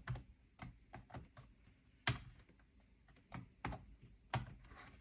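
Typing on an HP computer keyboard: a slow, irregular run of single key taps, as someone logs in to the computer.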